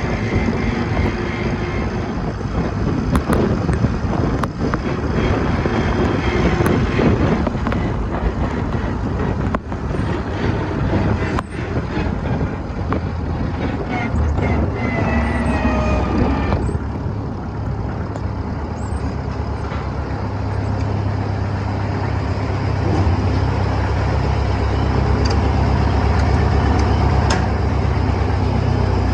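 Case 730 tractor engine running steadily under way. About two-thirds of the way through, the higher sounds fall away and a deeper, steady engine tone comes to the fore.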